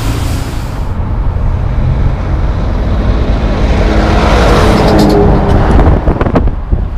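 Semi truck's diesel engine passing close, the engine note growing and climbing slightly as it draws level. It ends with sharp knocks and clatter as the low-deck trailer rolls by.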